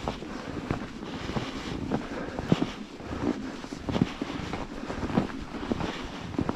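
Footsteps crunching in snow at a walking pace, about one every two-thirds of a second, with wind rumbling on the microphone.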